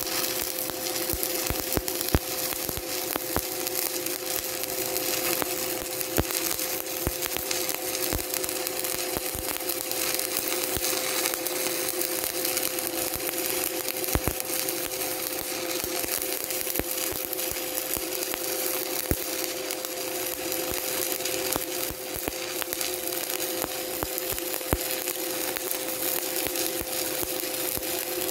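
Stick (shielded metal arc) welding arc burning steadily with a continuous crackle and frequent sharp pops, over a steady tone.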